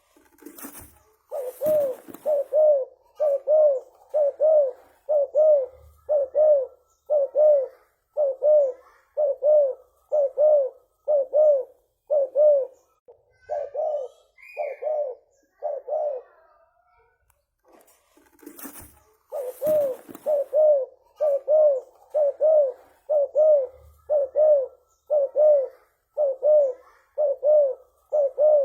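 Spotted dove (tekukur) cooing: a long run of short, low coo notes, about one and a half a second, breaking off for a few seconds and then starting again. Short bursts of noise come just before each run.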